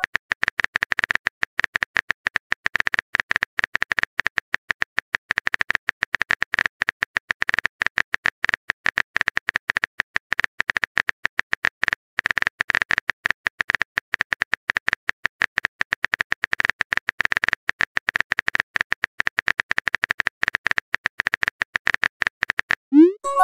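Rapid, steady stream of small keyboard-tap clicks: a chat app's typing sound effect as a message is typed out letter by letter.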